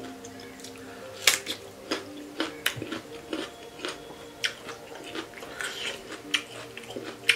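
A person chewing and smacking mouthfuls of pork curry and rice close to the microphone: irregular wet clicks, one or two a second, over a faint steady hum.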